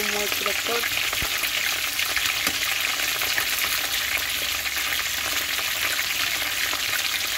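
Hot oil sizzling and crackling steadily around two whole fish shallow-frying in a pan.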